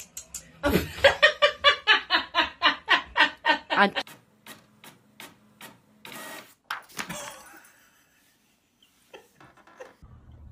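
A person laughing hard in quick rhythmic bursts, about five a second, for about three seconds, followed by a few light clicks.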